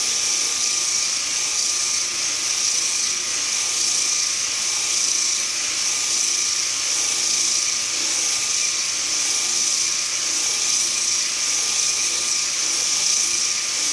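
Homemade hand sander, built from a 1/4-horsepower washing-machine motor with a rubber sanding disc, running steadily with a high whine and the hiss of sandpaper on wood.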